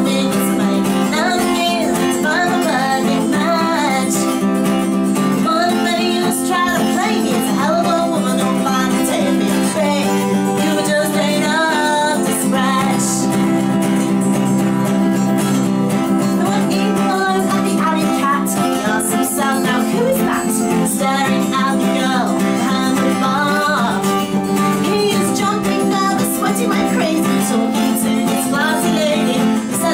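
A woman singing a folk song to her own steadily strummed acoustic guitar, performed live.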